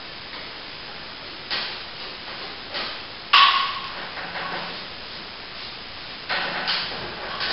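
Plastering hand tools working cornice cement into a cornice mitre: short scraping and brushing strokes, with one sharp metallic clink of steel tools a little past three seconds in.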